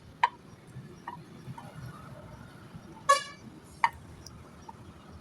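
A few sharp knocks or clicks with a brief ring, and about three seconds in a short, loud honk-like beep.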